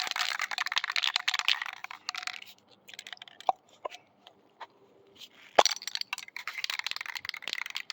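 Plastic cap of an aerosol spray-paint can being worked off by hand: crackling, scraping handling noise and a few clicks, with one sharp snap a little after halfway.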